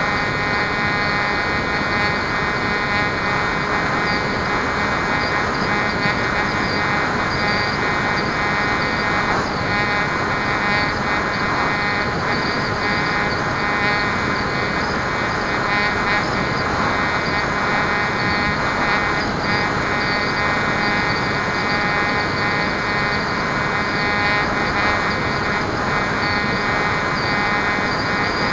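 Onboard sound of a Bixler foam RC plane in flight: its electric motor and propeller running steadily with an even whine, over a constant rush of wind noise.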